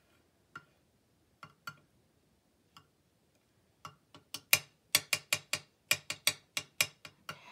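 Metal palette knife clicking and tapping against a craft media mat while mixing texture paste with ink: a few scattered clicks, then a quick run of sharp taps, about four a second, through the second half.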